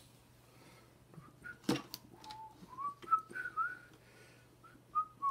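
A person whistling a few short notes of a tune, the pitch stepping and gliding up and down, starting about two seconds in. A single sharp knock comes just before the whistling.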